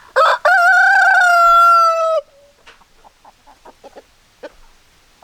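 A rooster crows once: a loud call of about two seconds, a short first note and then a long held one that sags slightly at the end. Soft short clucks follow.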